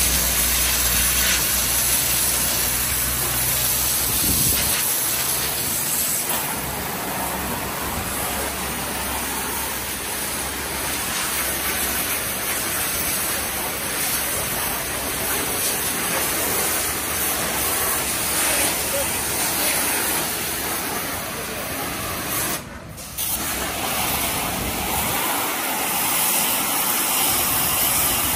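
Pressure washer wand blasting a high-pressure water jet against the walls and tank of a septic pit: a steady, loud hiss of spray. The spray cuts out for a moment about four-fifths of the way through, then starts again. A low steady hum runs underneath for the first five seconds or so.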